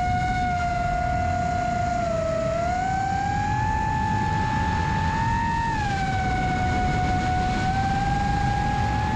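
FPV quadcopter's brushless motors (iFlight XING2 2207 1855KV) spinning HQprop Ethix S5 propellers, whining with the pitch shifting as the throttle changes: a dip about two seconds in, a rise, a drop around six seconds, and a climb again near the end. Wind rumbles low on the onboard GoPro Hero9's microphone.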